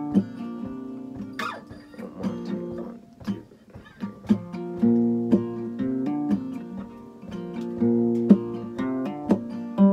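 Acoustic guitar strummed with a capo in a chord-based instrumental intro. The strumming thins to lighter picked notes about a second and a half in, then full strummed chords return around four seconds in.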